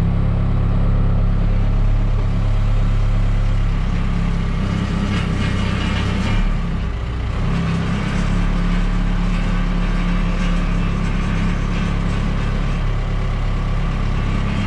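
An engine running steadily at an even speed, with a brief change in its note about seven seconds in.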